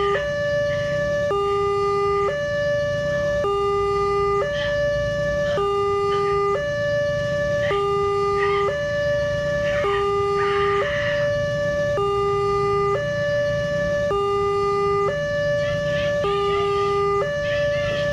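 Electronic hi-lo two-tone siren from a miniature railway level-crossing model, switching steadily between a higher and a lower tone about once a second.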